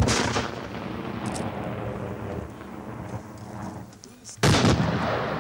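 Two sudden loud booms, one at the start and another about four and a half seconds in, each rumbling away slowly over a few seconds.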